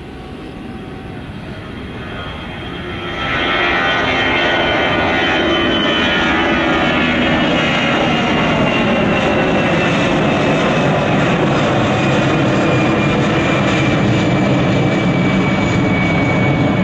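Twin-engine Airbus A320-family jet airliner climbing out after takeoff: a steady jet-engine roar that swells sharply about three seconds in, with a high whine slowly falling in pitch as the jet heads away. It cuts off suddenly at the end.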